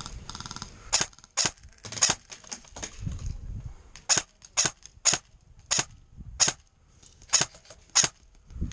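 Airsoft gunfire: about a dozen sharp single snaps at uneven intervals, a few clustered close together, others up to a second apart.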